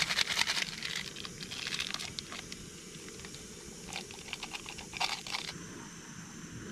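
Crinkling and tearing of a Shin Ramyun soup-powder sachet in several short bursts of crackly rustle as it is opened and shaken out into a camp stove pot. A steady faint hiss takes over near the end.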